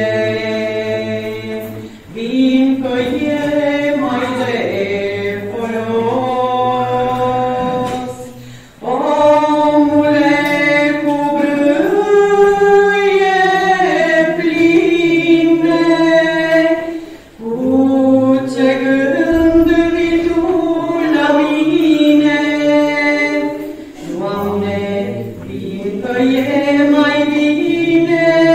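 Choir singing a Romanian Orthodox pricesne (devotional hymn) a cappella, in long held phrases with short pauses between them.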